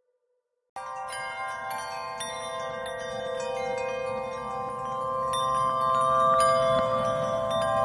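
Background music of chimes and bell-like tinkling over a sustained chord. It starts suddenly after a brief silence and slowly grows louder.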